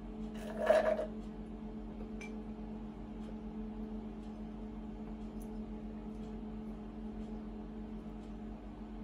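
A straw slurping the last of a glass of vodka and soda: one short, loud gurgling slurp about half a second in, then a few faint clicks of the glass and straw. A steady low hum runs underneath.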